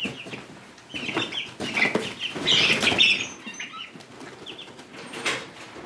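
Three-week-old chicks flapping their wings and scuffling inside a plastic tote brooder, with short high peeps. The loudest flurry comes about halfway through.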